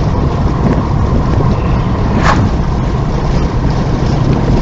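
Steady road and engine noise of a car driving at about 50 to 55 mph, heard from inside the cabin, with a single brief click about two seconds in.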